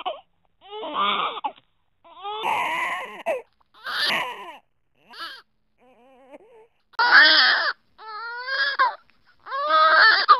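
Baby crying sound effect replayed as a string of edited variations: about eight short wailing cries separated by gaps, each at a different pitch. The one near the middle is faint and much lower, and the loudest come near the end.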